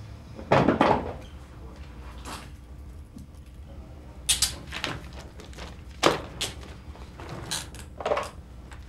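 Scuffling and handling noises as a detainee is gripped, pulled up from his chair and led off by police officers: a string of irregular knocks, bumps and clicks, loudest about half a second in, over a low room hum.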